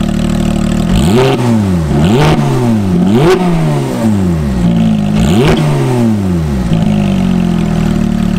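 2018 Porsche GT3's naturally aspirated 4.0-litre flat-six, breathing through a Brooke Race Exhaust rear bypass system, idling and then blipped four times, the revs shooting up and dropping straight back each time, before settling to idle again.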